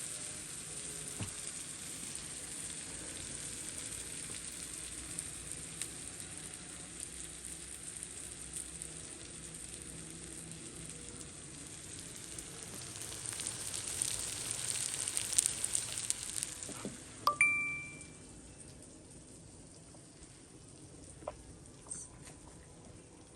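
Eggs frying in hot oil: a steady sizzle that swells into louder crackling, then drops away suddenly about two thirds of the way through. A short ringing clink follows, then only a few faint clicks.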